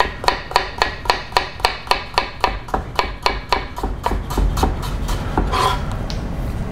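Kitchen knife slicing raw pumpkin into thin slices on a plastic cutting board: quick, even knocks of the blade hitting the board, about four a second, that thin out to a few scattered knocks after about four seconds.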